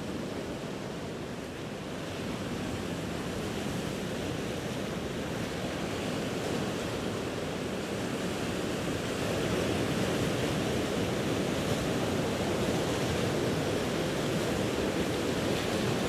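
Ocean surf ambience: a steady wash of waves with no distinct breaks, slowly growing louder.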